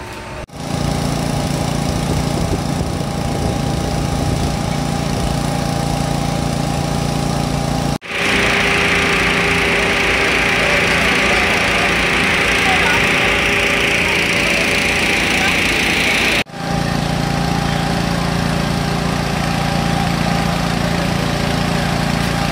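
A small petrol engine runs steadily at a constant speed, with a rushing hiss loudest in the middle section. The sound breaks off abruptly twice.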